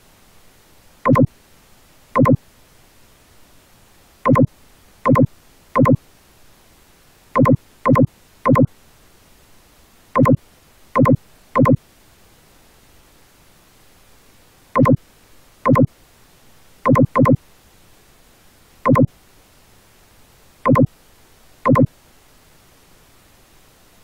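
Short, identical, buzzy electronic beeps, about eighteen of them, each about a quarter second long and at irregular intervals (some in quick pairs or threes), over a faint steady hiss.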